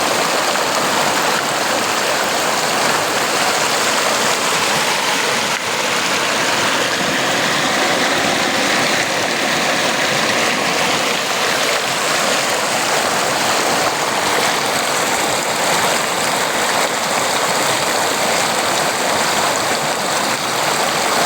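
Running water rushing steadily, a dense even hiss with no breaks.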